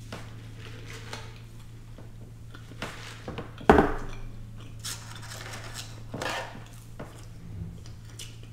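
Clicks, knocks and handling noises of fast-food packaging, a drink cup and a tray being moved about on a table, with one sharp knock about three and a half seconds in. A steady low hum runs underneath.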